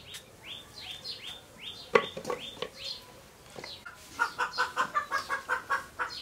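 A chicken clucking in a fast run of about a dozen clucks in the last two seconds. Earlier, a bird gives a few quick rising chirps, and a single sharp knock comes about two seconds in.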